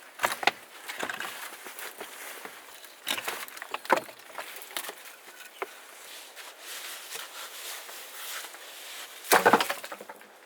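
Wood knocking and cracking: a series of scattered sharp knocks and snaps, with a louder cluster of cracks near the end.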